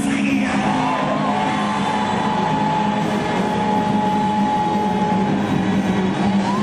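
Music: a single note that glides up about a second in and is then held for several seconds over a steady, dense background.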